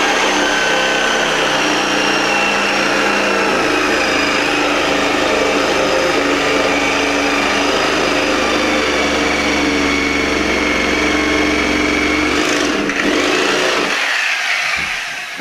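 Corded reciprocating saw (Sawzall) running steadily, its blade cutting through the subfloor along the wall; the saw slows and tails off near the end.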